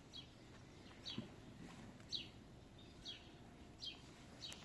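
A small bird calling faintly outdoors, a short falling chirp repeated about once a second, six times.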